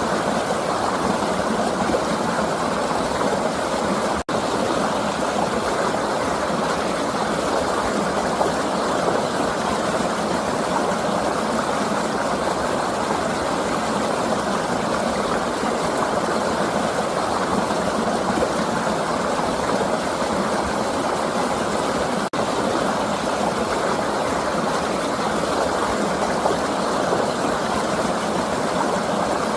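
River water flowing in a steady, even rush, broken twice by a split-second dropout.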